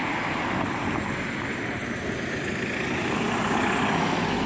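Road traffic: cars driving past on the street, a steady rush of tyre and engine noise.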